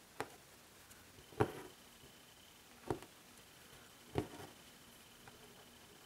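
Embroidery needle pushed through taut fabric four times, roughly one stitch every second and a half: each a sharp tap, two of them trailing off briefly as the thread is drawn through.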